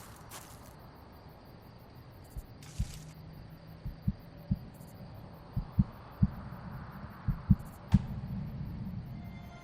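Low, dull thuds, about a dozen, several coming in close pairs, over a faint low hum.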